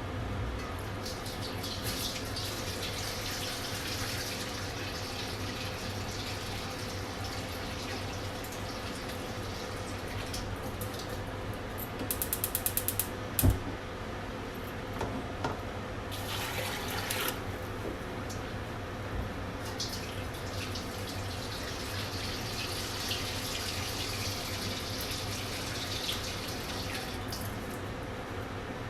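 Water running from a kitchen tap into a sink in two long stretches, over a steady low hum. Midway there is a quick run of clicks and then a single knock.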